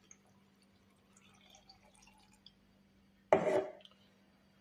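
Water poured into a blender jar: a short, sudden splash about three seconds in that dies away within half a second, after a few faint clinks.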